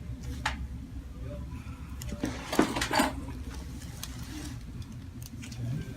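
Joints popping during a chiropractic adjustment: a quick run of sharp cracks about two and a half seconds in, after a single click near the start, over a steady low hum.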